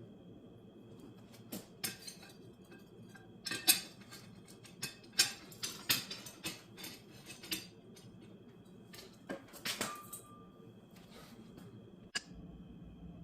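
Irregular metallic clinks and knocks, as of hard metal objects being picked up, set down and knocking together on a bench.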